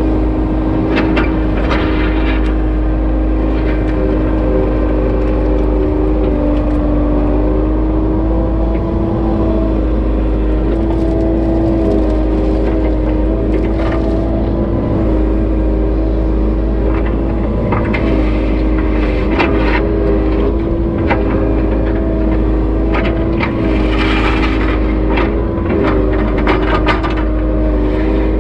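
Kubota KX080-3 excavator's diesel engine running steadily, heard from inside the cab, its pitch shifting slightly as the hydraulics work. Scattered knocks and clanks come as the bucket digs and dumps dirt.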